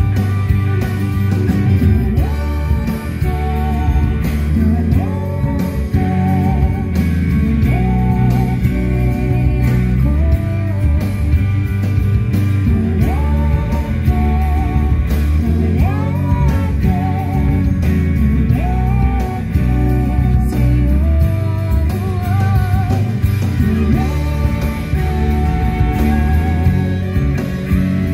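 Background music with guitar and a wavering melody line that rises and falls.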